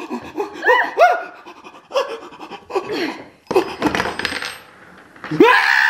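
A quick series of short, squeaky vocal sounds that rise and fall in pitch, then a metallic clatter with a high ring a little past halfway.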